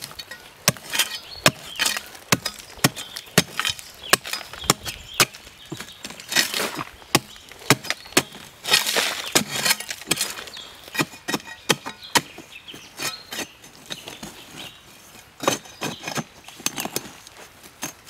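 Metal-bladed digging tool chopping into the hard, dry earth of a termite mound: rapid sharp strikes, about two to three a second, with the scrape and crumble of loosened soil between them.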